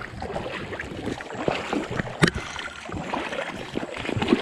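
Trout-stream water splashing and gurgling over rocks, with one sharp click about halfway through.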